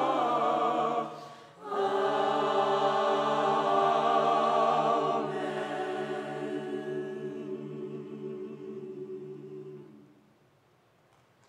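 Choir singing long sustained chords; the sound breaks off briefly about a second in, comes back, and a final held chord slowly thins and dies away about ten seconds in.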